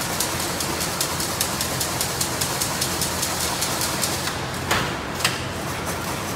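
Automatic double-wire chain link fence machine running, a steady mechanical clatter with rapid, even clicking as it weaves the wire into diamond mesh, and a couple of louder knocks a little under five seconds in.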